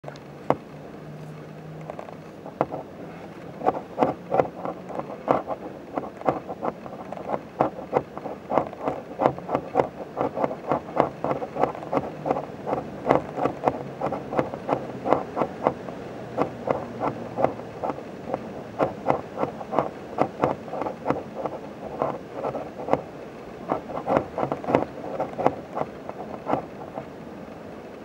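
Barn owl chicks giving rasping begging calls, several owlets at once, as a quick run of short pulses several times a second.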